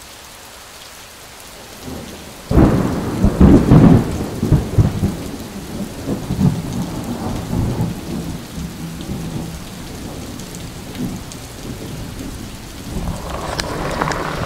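Steady rain with a sudden loud clap of thunder about two and a half seconds in, rumbling on in surges for several seconds before dying away.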